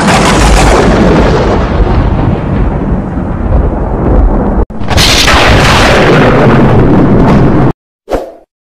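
Loud, deep rumbling blast sound effects of an animated logo intro: one noisy blast runs about four and a half seconds and cuts off suddenly, a second follows for nearly three seconds, and a short hit comes near the end.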